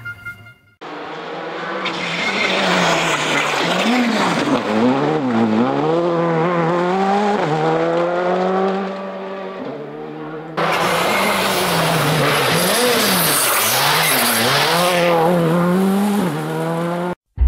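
Skoda Fabia R5 rally car's turbocharged four-cylinder engine revving hard, its pitch swinging up and down again and again as the car slides, with tyres squealing. The sound comes in about a second in, jumps to a second, louder pass about ten seconds in, and cuts off just before the end.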